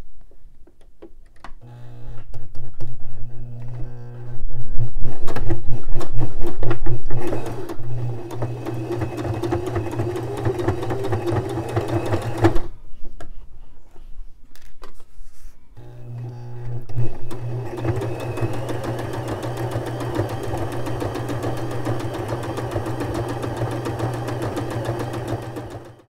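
Electric sewing machine running a straight stretch stitch along a dress hem, in two long runs with a stop of about three seconds between them.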